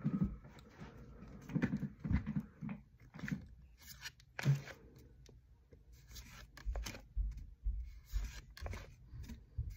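Trading cards being handled: irregular rustling, scraping and light clicks as Pokémon cards are slid and shuffled against one another, with a few soft low bumps in the second half.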